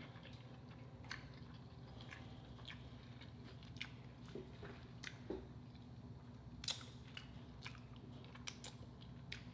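Close-up, faint chewing of lobster meat with the mouth closed, with scattered wet mouth clicks and smacks about once a second; the loudest click comes about two-thirds of the way through. Near the end, a finger is licked clean of sauce.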